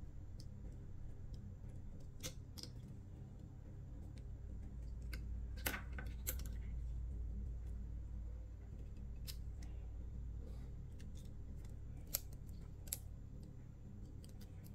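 Scattered sharp clicks and ticks from a metal fishing hook, line and plastic pen being handled close to the microphone, over a low steady hum.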